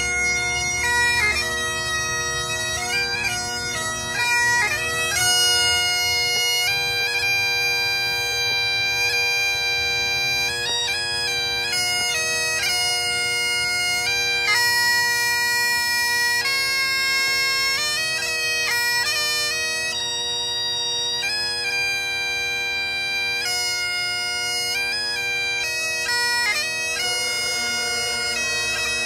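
Several Great Highland bagpipes playing a tune together, the melody moving over the steady drones.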